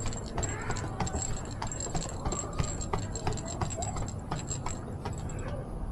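Footsteps on a rooftop: irregular clicking taps, a few a second, over a steady deep rumble.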